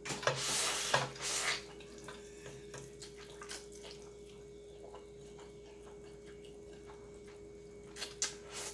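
A person slurping and sucking up noodles straight off a metal baking sheet, mouth only: wet slurps in the first second and a half and again near the end, with faint mouth clicks between. A faint steady hum runs underneath.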